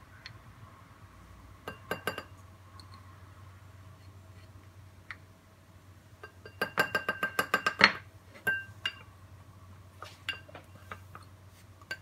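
Wooden spoon clinking against a small ceramic bowl and a glass bowl while scooping rice flour. A quick run of taps on the glass bowl comes a little past the middle, knocking flour off the spoon, with a few more scattered clinks later.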